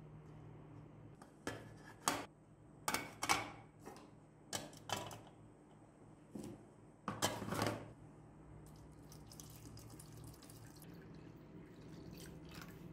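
Plastic and metal motorcycle headlight parts knocking and clattering into a plastic tub, a string of sharp clunks, then a fainter trickle and splash as water is poured over them from a bottle near the end.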